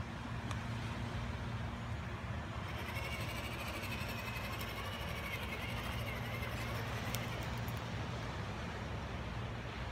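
Traxxas TRX-4 Defender radio-controlled crawler driving slowly over dirt and rocks: a wavering whine from its electric motor and gears for a few seconds in the middle, over a steady low hum and hiss.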